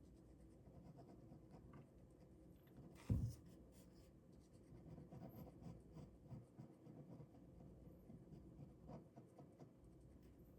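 Ballpoint pen drawing on paper: faint, irregular scratching strokes, with a single short thump about three seconds in.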